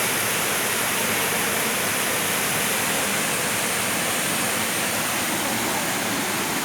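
Waterfall pouring steadily, a constant rushing of falling water.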